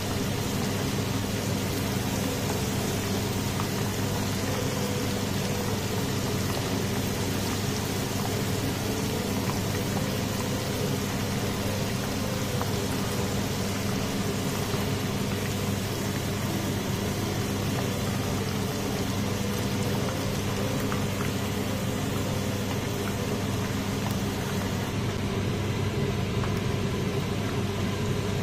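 Floured diced liver pieces deep-frying in hot oil in a pan, a steady dense sizzle, with a steady low hum beneath it.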